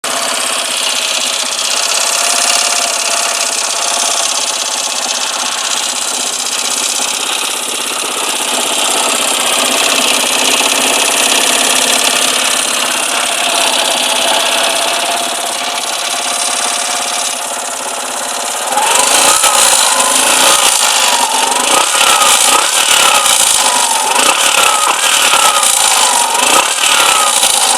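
Carbureted Suzuki GSR 125 scooter's single-cylinder four-stroke engine idling steadily, then revved in several quick blips from about two-thirds of the way in. The owner presents this as an abnormal noise from the engine.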